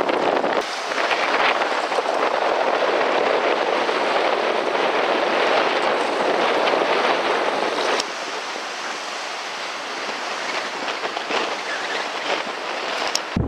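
Wind and choppy surf rushing, with wind buffeting the microphone. It is a steady, loud noise with no tones, and it changes abruptly twice, about half a second in and about eight seconds in.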